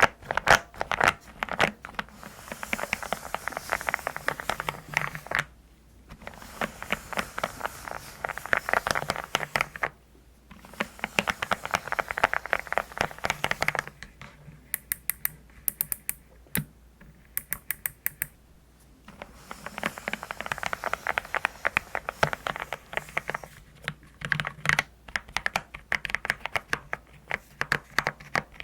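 Fast typing on a custom mechanical keyboard with deep, pebble-like 'dogak-dogak' keystrokes, in bursts of a few seconds with short pauses between. Midway there is a slower stretch of fewer, sharper clicks.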